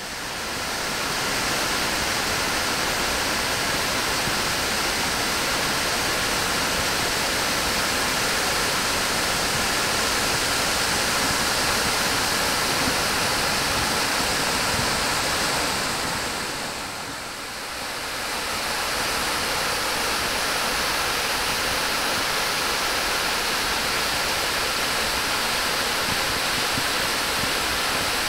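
Crabtree Falls' cascades rushing steadily over rock, the creek running high after heavy rain. The rush dips briefly about two-thirds of the way through, then comes back.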